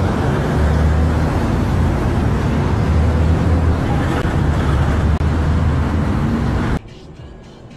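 Loud roadside traffic noise with a heavy low rumble that cuts off suddenly about seven seconds in, leaving a much quieter background.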